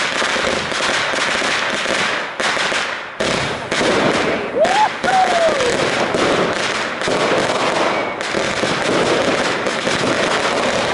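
Consumer fireworks cake firing: a dense run of bangs and crackling bursts over a steady hiss of shots leaving the tubes, with a short lull about two and a half seconds in before it picks up again.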